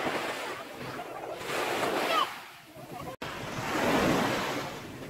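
Waves breaking and washing up a sandy shore, with wind buffeting the microphone. The sound cuts out for an instant about three seconds in, and the surf is louder after it.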